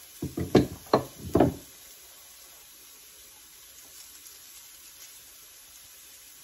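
Four or five quick wooden and ceramic knocks in the first second and a half as a wooden pepper mill is set down on a shelf and a ceramic salt pot is handled, then only a faint steady background.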